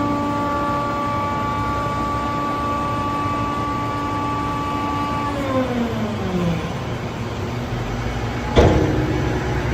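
Scrap copper baler machine running with a steady mechanical whine. About five seconds in the whine falls in pitch, and a single loud metallic bang comes near the end.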